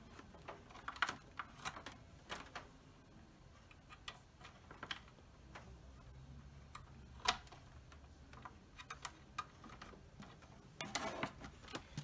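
Scattered light clicks and taps of RCA composite plugs and their cables being handled and pushed into the audio-video jacks on the back of a small flat-screen TV, with a busier run of clicks near the end.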